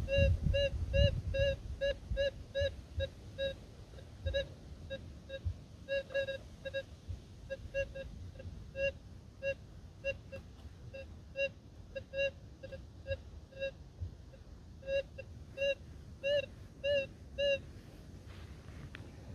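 Minelab Gold Monster gold detector beeping: short beeps at one steady pitch, about two to four a second, growing louder and softer as the coil moves, until they stop shortly before the end. A low rumble sits under the first beeps.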